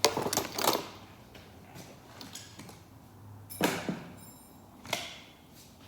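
Metal tools clanking: a quick run of sharp clinks and knocks, then two louder single knocks a few seconds later, one followed by a brief high metallic ring.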